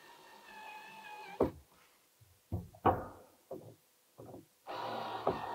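A few sharp knocks and clunks, about five spread over three seconds with the first the loudest, as a metal pipe clamp is worked tight around a plastic soil stack pipe with a screwdriver.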